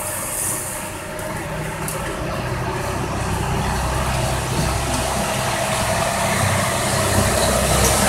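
Steady low engine rumble, like a motor vehicle idling, slowly growing louder.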